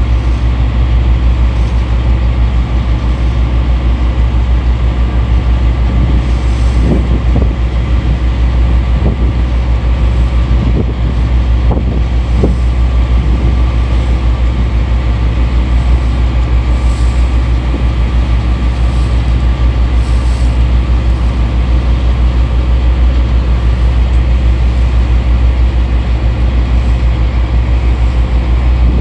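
Steady, loud low rumble aboard the support vessel YF2125 underway: the boat's engine running together with strong wind buffeting the phone's microphone.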